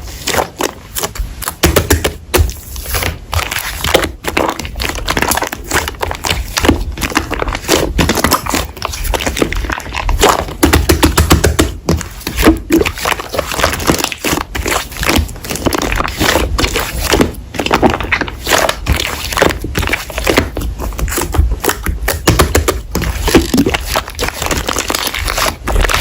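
Slime being squeezed and pressed by hand, making dense, continuous crackling and popping.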